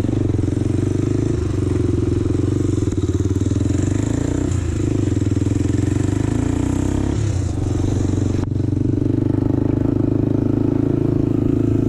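ATV engine running under way while riding, its note dipping briefly and picking up again about three times.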